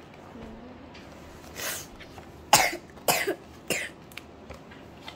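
A young child coughing four times in quick succession, the loudest cough about halfway through.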